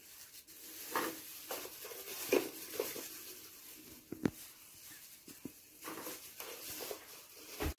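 Faint, scattered handling sounds of a plastic-gloved hand soaking ladyfinger biscuits and setting them onto a layer of soft cream, with one sharp click about four seconds in.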